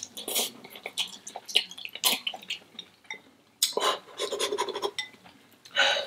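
Close-miked eating of spicy instant noodles: wet mouth clicks and chewing, with longer slurps about four seconds in and again near the end.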